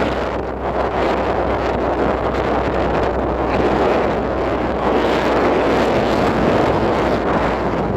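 Steady road noise from a vehicle driving along a gravel road: tyres on gravel over a low, even hum, with some wind on the microphone.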